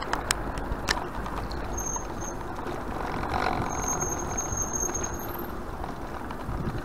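Footsteps on cobblestones over a steady outdoor background hiss. There are a few sharp clicks in the first second, and a thin high squeal sounds twice.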